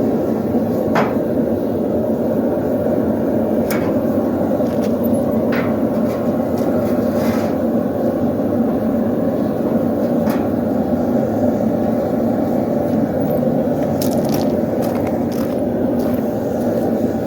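Blacksmith's forge running with a steady rushing noise, with scattered light clicks and taps over it.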